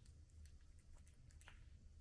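A cat chewing its food: a few faint crunching clicks, over a low steady hum.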